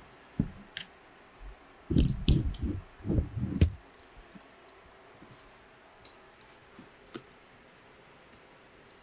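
Handling noise from a video camera being lifted off its mount and carried: a knock, then a cluster of low thumps and rubs over a couple of seconds, followed by faint light clicks.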